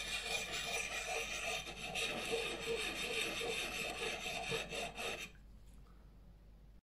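Handheld diamond sharpening stone rubbed in a circular motion along a steel axe edge: a continuous gritty scraping that stops about five seconds in.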